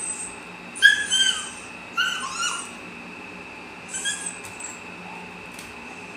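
Young dog whining in excitement: three short, high-pitched whines that bend in pitch, about a second in, two seconds in and four seconds in.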